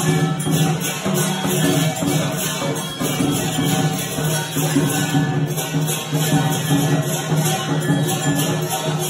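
Music with a steady low drone and continuous jingling, shaker-like percussion.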